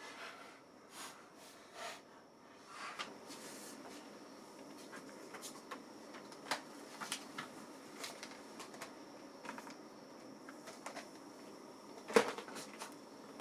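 Laptop case being closed up by hand: scattered light plastic clicks and taps, with one sharper knock about twelve seconds in.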